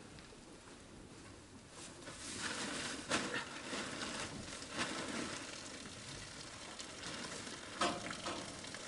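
Rustling and shuffling in straw bedding with a few sharp knocks and scrapes as people and animals shift about. It is quieter for the first two seconds, and the loudest knock comes near the end.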